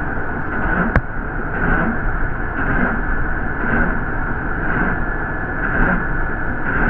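Steady engine and road noise heard from inside a moving New York City MTA bus. A soft swish repeats about once a second, and there is a single sharp click about a second in.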